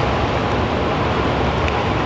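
Steady rushing and splashing of churned pool water around a submerged helicopter-escape simulator fuselage.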